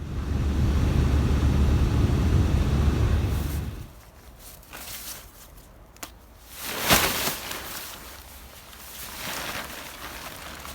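Wind buffeting the microphone, heavy for about four seconds, then dropping to a fainter outdoor rush with a single sharp knock about seven seconds in.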